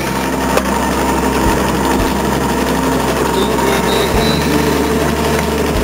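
Clay brick making machine running steadily with a constant low hum, with a few light knocks.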